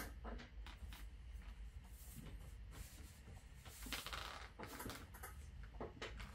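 Handling noises: a sharp knock at the start, then scattered clicks and knocks and a brief rustle or scrape about four seconds in, over a low rumble.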